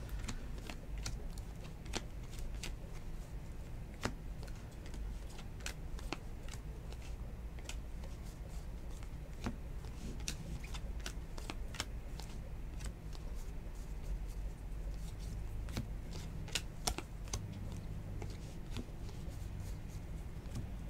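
A hand-held stack of 2019 Bowman baseball trading cards being flipped through one card at a time, the card stock giving irregular light clicks and flicks. A low steady hum runs underneath.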